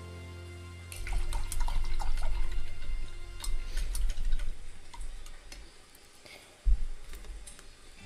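Paintbrush swished and knocked around in a metal cup of rinse water, a few seconds of splashing and clinking rattles starting about a second in, then one sharp knock near the end. Soft background music underneath.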